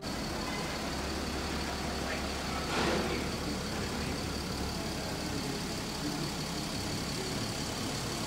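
Steady low engine-like hum with a faint high whine, as of a motor vehicle idling. A brief swell of noise comes about three seconds in.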